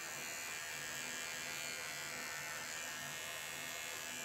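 Cordless electric pet clipper running with a steady buzz as it trims the fur on a puppy's foot.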